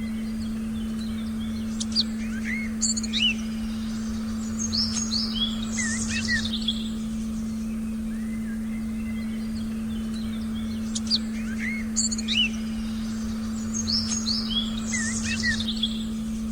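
A steady, unbroken meditation tone hums under forest birdsong. The birds chirp and whistle in two bouts of quick calls, the same run of calls heard twice.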